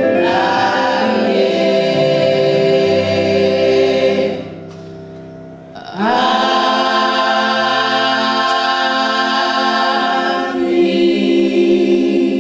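Women's gospel choir singing long held chords in harmony, breaking off for about a second and a half midway before coming back in on the next phrase.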